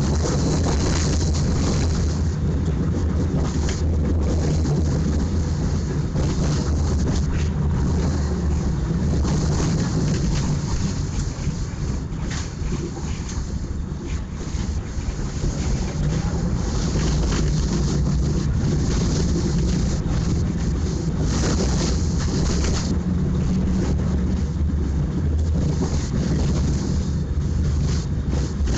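Tram running along the street, heard from inside the car: a steady low rumble and hum from the motors and wheels, with scattered small rattles and clicks.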